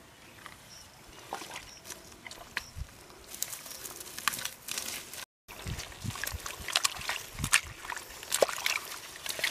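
Hands digging and sloshing in wet mud and shallow muddy water: an irregular run of wet slaps, squelches and small splashes, busier in the second half, with a brief dropout about halfway.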